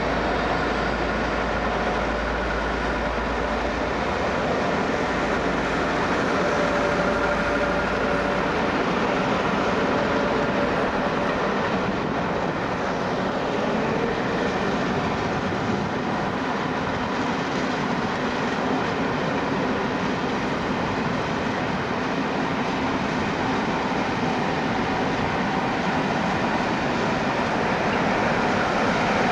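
Pullman passenger coaches rolling past at speed: a steady rumble and rush of steel wheels on the rails. Near the end the rear Class 47 diesel locomotive draws level and the noise swells slightly.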